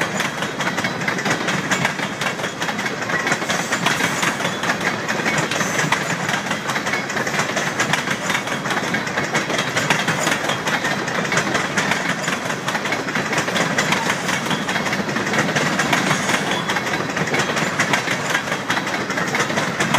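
Freight train tank cars rolling past on the rails: a steady wheel-on-rail noise threaded with many quick, fine clicks.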